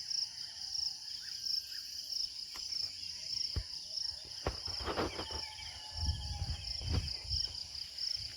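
Insects chirping in a steady, high, pulsing trill, with a few sharp knocks about halfway through and some low thumps shortly after.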